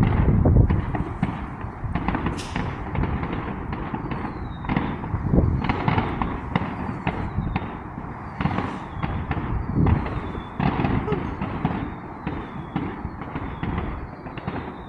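Many consumer fireworks and firecrackers going off, a dense run of bangs and crackles that is loudest at the start. Short falling whistles recur through the middle.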